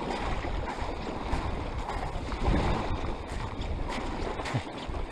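Wind buffeting the microphone over small waves lapping on a gravel lakeshore, with footsteps crunching on the gravel at a walking pace.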